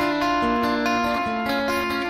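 Background music led by guitar, a run of plucked notes at an even level.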